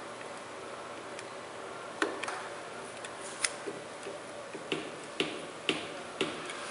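A run of small sharp clicks from small hand tools working the cut strain-gauge lead wires, starting about two seconds in and coming roughly every half second over a steady low hiss.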